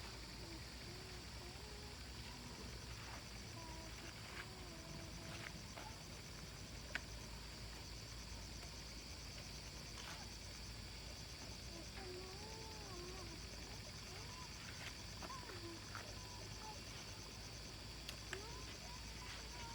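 Steady, high-pitched insect chirring with a fast, even pulse, with faint wavering voices in the distance now and then and a few light clicks.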